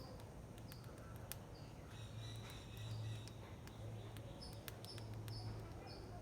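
A squirrel nibbling rice: faint, sharp clicks scattered irregularly, over short high chirps that repeat several times and a steady low hum.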